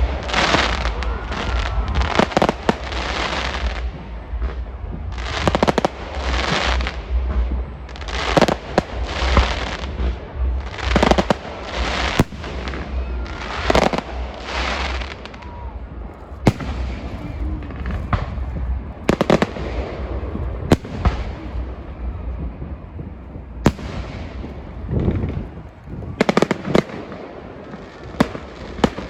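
Fireworks display: shells bursting one after another every second or two, with crackling tails and several sharp single bangs in the second half.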